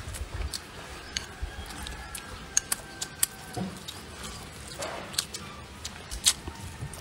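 Close-up eating sounds: chewing and lip smacks with scattered light clicks of chopsticks against a bowl.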